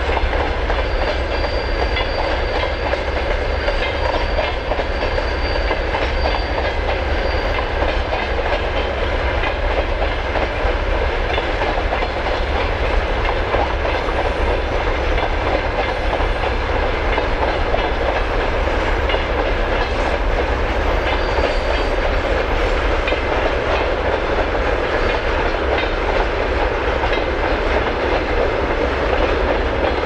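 Freight train wagons (empty grain-container flats and tank cars) rolling past steadily, their wheels clattering over the rail joints in a continuous run of clicks.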